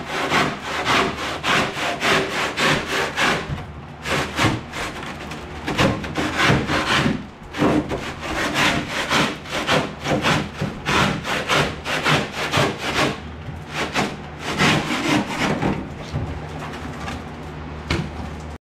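Handsaw cutting through cured two-part polyurethane flotation foam in quick back-and-forth strokes, about two a second, with a couple of brief pauses, trimming the foam level with the boat's floor ribs.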